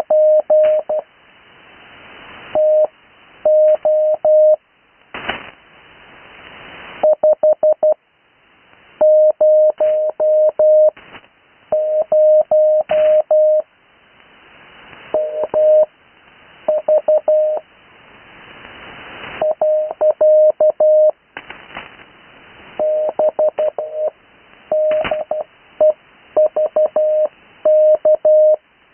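Morse code (CW) being sent as plain text at about 12 words a minute and received on the 80 m amateur band: one steady mid-pitched tone keyed on and off in dots and dashes. Band hiss swells up in the pauses between characters and words.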